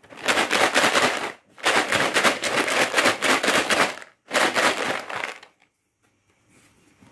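Dry fried seblak crackers rattling and crackling against the walls of a lidded plastic tub as it is shaken in three bouts, coating them evenly with the dry seasoning. The shaking stops a little past halfway through.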